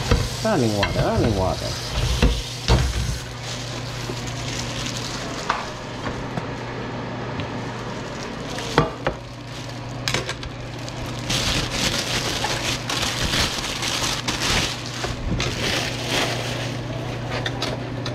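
Kitchen tap water running over raw shrimp in a glass bowl as they are rinsed, with a couple of sharp knocks. In the second half comes a brighter, crackly rustle of a plastic bag and leafy greens being handled.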